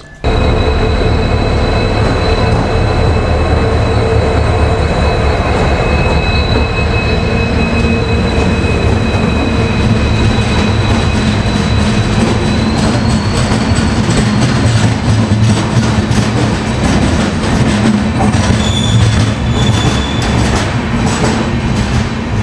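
Passenger train of LHB coaches rolling along the platform: a steady rumble of wheels on rails, with thin high wheel squeals held through much of it, one rising briefly about halfway through.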